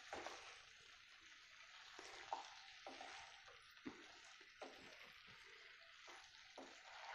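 Faint sizzling of capsicum and paneer cooking in masala in a kadhai, with about six soft scrapes and knocks of a spatula stirring.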